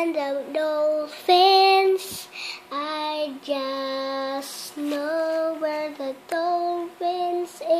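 A child singing a tune in long held notes, each lasting about a second, with short breaks between the phrases.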